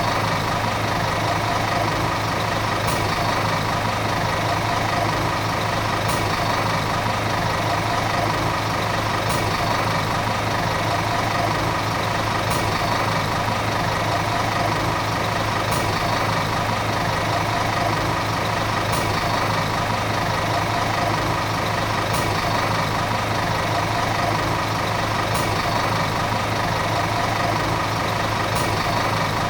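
Volvo city bus diesel engine running steadily at an unchanging pitch, with a faint short tick about every three seconds.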